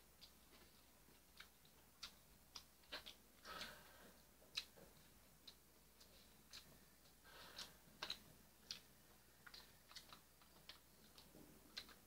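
Faint eating sounds: chewing, with irregular small clicks of metal chopsticks.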